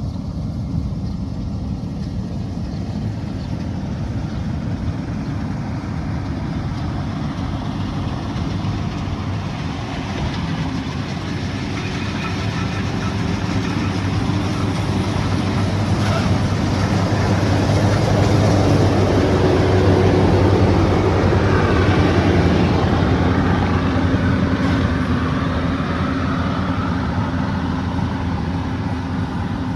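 Diesel engine of a heavy farm machine running steadily, growing louder toward the middle and easing off near the end as it works nearby.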